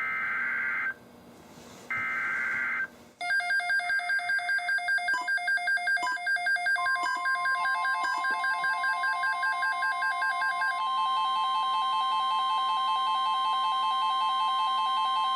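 Two short bursts of SAME digital header tones from a NOAA Weather Radio broadcast. Then weather radio receivers' electronic alert alarms beep rapidly, about three pulses a second, and about seven seconds in the steady 1050 Hz warning alarm tone joins them.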